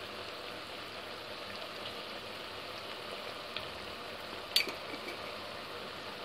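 Chopped onion frying in ghee and oil in a pot: a steady bubbling sizzle. One sharp click about four and a half seconds in.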